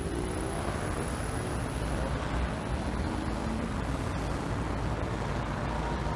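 Steady roar of road traffic on a busy city street, heaviest in the low end, with no single vehicle standing out.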